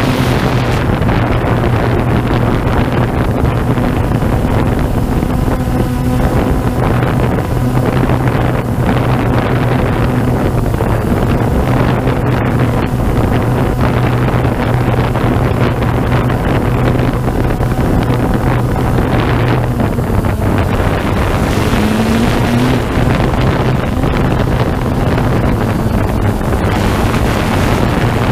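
Camera drone's propellers and motors buzzing steadily in flight, with wind noise on the microphone. The pitch rises briefly a little past two-thirds of the way through.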